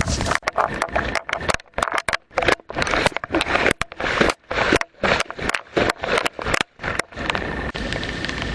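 Irregular scraping and crackling noises, a quick uneven run of short bursts with brief silent gaps between them, stopping about seven seconds in.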